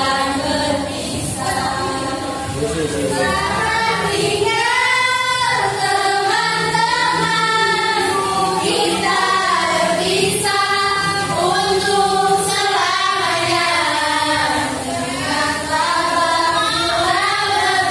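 A group of young voices singing a slow Indonesian pop song together, like a choir.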